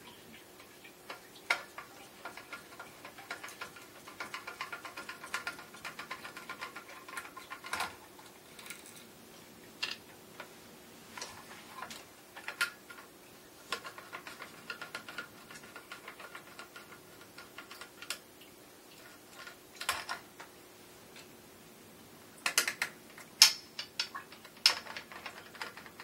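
A Phillips screwdriver backing screws out of a ceiling fan's metal light-kit canopy: long runs of fast, faint ticking as the screws turn, broken by occasional louder clicks. A cluster of sharper clicks comes near the end as the fitting is handled.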